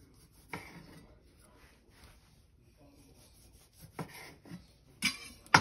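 Chef's knife cutting cherry tomatoes in half on a bamboo cutting board: a few scattered cuts tapping the wood, with a sharp knock of the blade on the board near the end.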